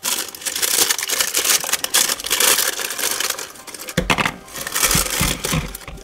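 Printed accessory wrapping crinkling and rustling close up as hands pull it open, with a few dull bumps of handling about four seconds in.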